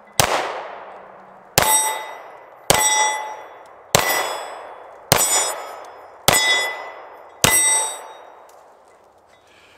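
Seven shots from a Kahr K9 9mm pistol, about one every second and a quarter. Each shot is followed by the clanging ring of a struck steel plate target, fading over the next second.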